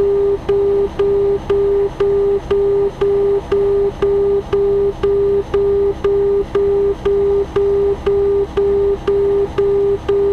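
Outer marker beacon tone over the Cessna 172's headset audio: a steady run of low-pitched dashes, about two a second, the signal that the aircraft is passing over the ILS outer marker. The engine's drone sits underneath.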